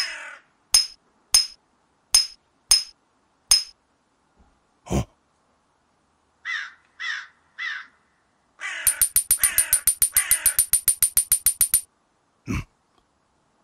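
Cartoon sound effects of stones being struck together: six sharp clicks about half a second apart, a dull thud, three short calls, then a fast run of about eight clicks a second for some three seconds, and a final thud.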